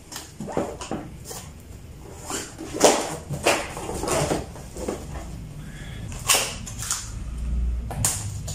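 Large cardboard monitor box being handled: irregular rubs, scrapes and knocks of cardboard as it is tipped over and laid flat on a leather sofa, then worked at by hand.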